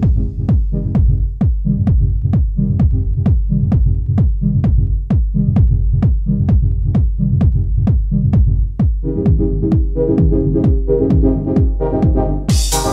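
Electronic dance music with a steady, driving kick drum and bass. A mid-range synth part joins about nine seconds in, and bright cymbals come in near the end.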